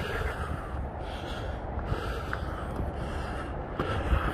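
A hiker breathing hard while walking uphill, about one breath a second, over a steady low rumble on the microphone.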